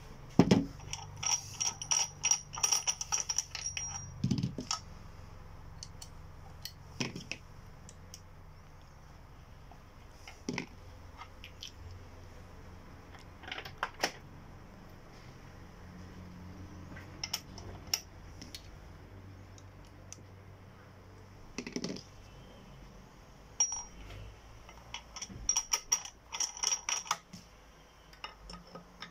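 Sharp metallic clinks and taps, in scattered clusters, from steel tools and a hole punch being handled and worked on a cast-iron hand press while bolt holes are made in a Klingerit gasket sheet.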